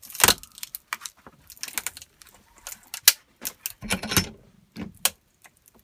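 Irregular sharp clicks and cracks of an iPhone 5's glass and metal body giving way as it is bent and squashed, with a denser run of heavier crunches about four seconds in.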